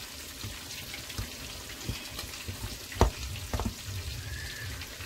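Chicken frying in hot oil in a pan, a steady sizzle with crackles. About three seconds in comes a sharp knock, the loudest sound, with a lighter one about half a second later.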